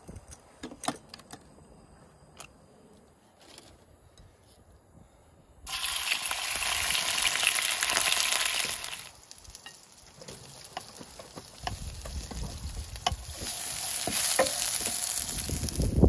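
Raw chicken pieces sizzling in hot oil in a frying pan. The sizzle starts suddenly about a third of the way in, loud for a few seconds, then dies down. It swells again near the end along with a low rumble; before it there are only a few faint clicks.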